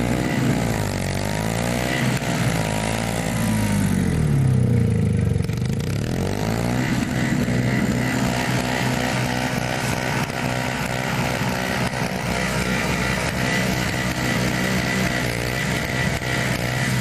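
Small two-stroke engine running hard under changing load. Its speed dips and recovers several times in the first seven seconds, then holds steady.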